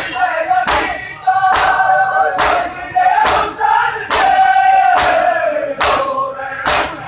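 Crowd of men performing matam, open hands slapping bare chests in unison about once a second, over loud chanted mourning cries.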